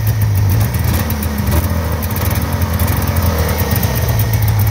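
Yamaha 440 SS snowmobile's two-stroke engine running steadily after being started, with no revving.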